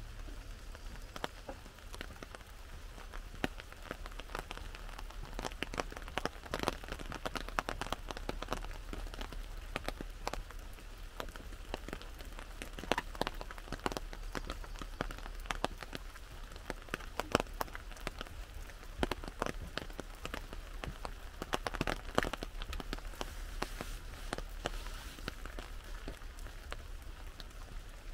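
Rain falling on an umbrella held overhead: irregular taps of single drops, some much louder than the rest.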